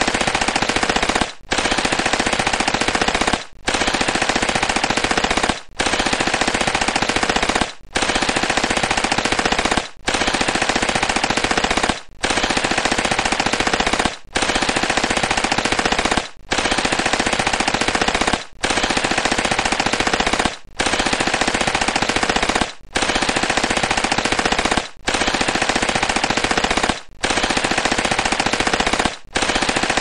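Uzi submachine gun firing on full automatic in long bursts of about two seconds each. Each burst is separated by a brief break, and the pattern repeats at an even pace.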